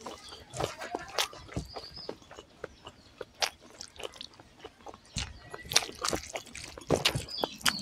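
Fingers squishing and mixing rice with egg curry gravy on a banana leaf, with irregular wet clicks and smacks. Gravy is poured from a small bowl onto the rice partway through, and chewing sounds are mixed in.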